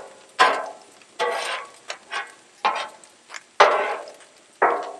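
Metal spatula scraping and clinking against the steel cooktop of a Blackstone griddle while scooping fried rice, a run of short sharp scrapes about one or two a second.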